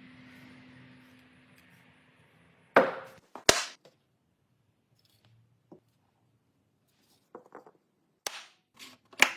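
Sharp wooden knocks: two loud ones about three seconds in, a few light taps, then two more loud knocks near the end. A faint steady hum fades out before the first knock.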